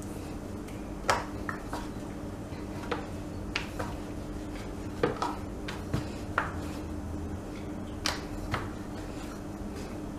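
Wooden rolling pin rolling dough out on a bamboo chopping board, with a dozen or so scattered light knocks and clicks of wood on wood. A faint steady low hum runs underneath.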